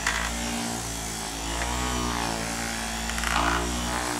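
Hand-held 5-inch orbital sander fitted with a polishing bonnet running steadily while it buffs an acrylic drum shell: a continuous motor hum with a whir that wavers as the pad is pressed and moved over the shell.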